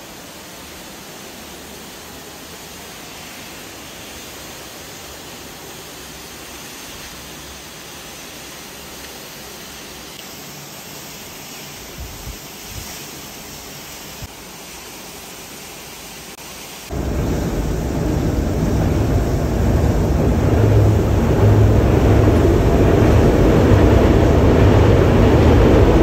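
A steady rush of falling water and spray. About two-thirds of the way through, a much louder low rumble starts suddenly and keeps growing: an Indian Railways electric locomotive and its train running onto and across the railway bridge.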